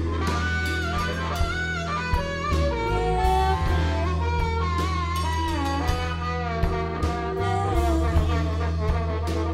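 A live band plays an instrumental passage. A harmonica leads with bending notes over electric guitars, bass and drums.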